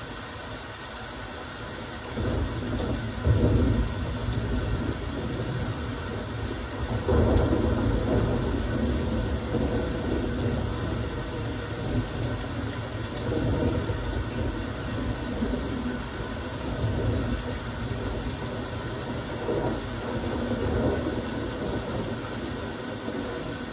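Steady rain, an even hiss of drops, with low rumbling swells that rise and fade every few seconds.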